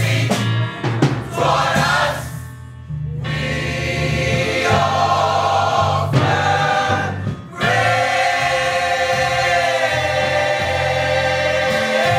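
Gospel mass choir singing with instrumental accompaniment, the music dropping briefly twice before the choir holds a long sustained chord.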